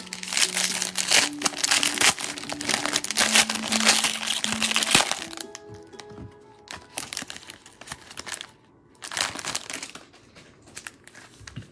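Foil wrapper of a Pristine baseball card pack being torn open and crumpled by gloved hands: dense crinkling for the first five seconds or so, then shorter crinkles as the card is pulled out. Soft background music plays underneath.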